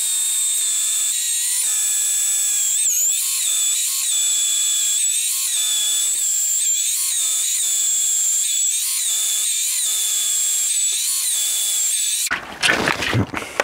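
Cordless hammer drill boring a small pilot hole into a cured concrete foundation, running steadily with a high whine that wavers slightly, and stopping about a second before the end.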